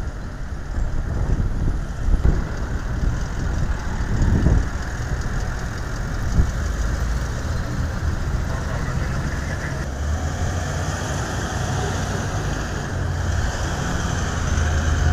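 A motorcade of Toyota SUVs driving slowly past, with a steady sound of engines and tyres. A lower engine hum grows stronger towards the end as another vehicle comes close.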